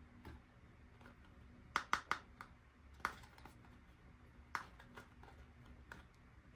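Light clicks and taps of hands handling small toy pieces: a quick run of three or four about two seconds in, then single clicks about a second and a half apart, over faint room hum.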